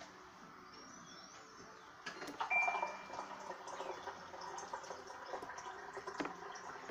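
Water running from a countertop water dispenser into a cup. It starts about two seconds in and keeps flowing steadily, with a short high tone about two and a half seconds in.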